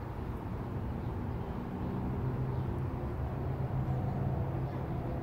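Steady low hum of a running motor, with a few faint steady tones above it.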